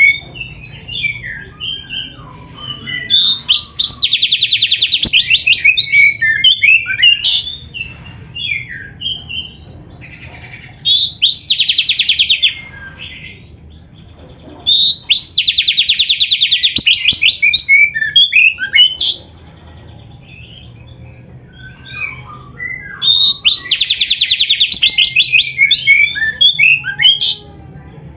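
Oriental magpie-robin (kacer) singing loudly: four long runs of fast repeated notes, each about two seconds, joined by short, varied whistled and chattering phrases.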